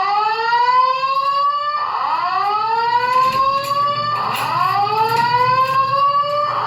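Voice-evacuation fire alarm sounding a whoop tone: a loud rising sweep, each about two seconds long, repeated three times in a row.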